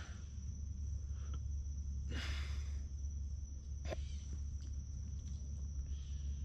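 Insects trilling steadily on one high note over a low steady rumble. A short rustle about two seconds in and a sharp click near four seconds.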